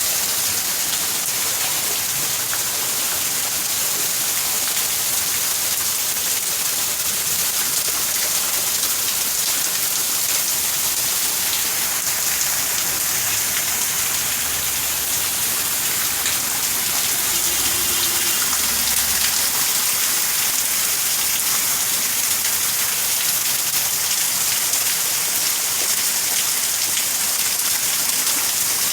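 Heavy rain pouring down in a storm, a steady, unbroken hiss.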